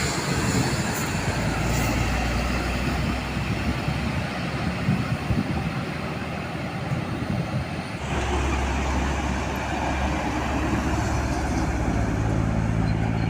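Steady vehicle traffic noise; a low engine hum sets in abruptly about eight seconds in.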